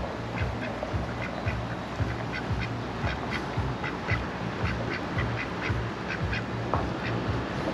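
Domestic ducks quacking: a steady run of short quacks, about two or three a second.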